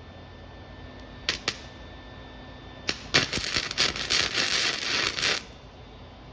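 Electric welding arc crackling for about two seconds, preceded by a few sharp clicks.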